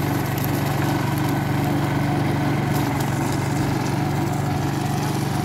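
Core cutting machine running steadily, its rotating core bit drilling a core out of the bituminous (dense bituminous macadam) road layer under hand feed.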